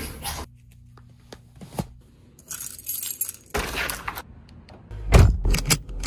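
A string of short handling sounds across quick cuts: toothbrush scrubbing cut off just after the start, a door being opened, then heavy thumps and clicks near the end as a car seatbelt is buckled.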